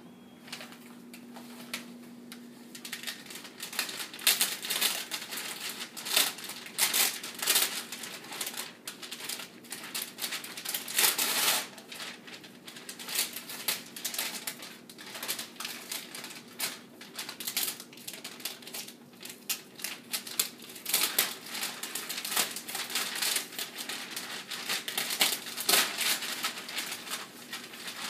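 Christmas wrapping paper crinkling and tearing as a large wrapped box is opened by hand, in irregular bursts of rustling that start a few seconds in.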